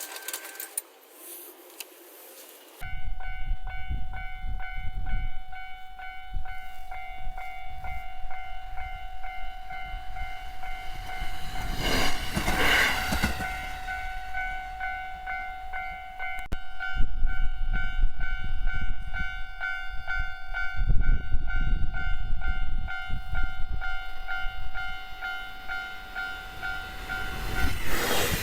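Railway level-crossing warning bell ringing in a fast, steady, repeating electronic tone, starting about three seconds in and stopping just before the end, over the low rumble and wheel noise of a train running past, which swells louder around the middle and again in the second half.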